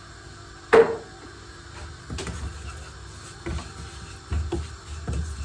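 Kitchen clatter while cooking: one sharp knock about a second in, then several lighter knocks and taps.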